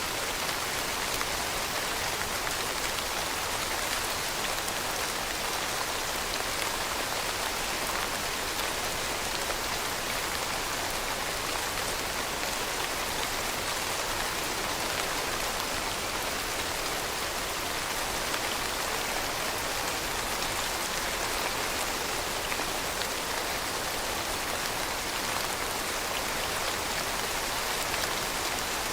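Steady rain falling: a dense, even hiss of countless drops, with faint individual drop taps, holding the same level throughout.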